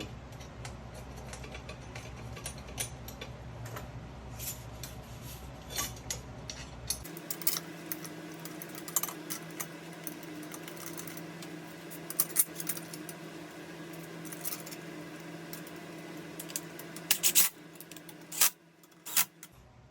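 Light metallic clicks and clinks of bolts and tools being handled as the belt-guard bolts are threaded by hand into the GY6 engine case, with a few louder clicks near the end.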